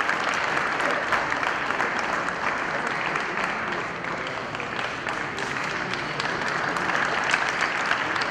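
A crowd applauding: many hands clapping steadily, easing slightly about halfway through.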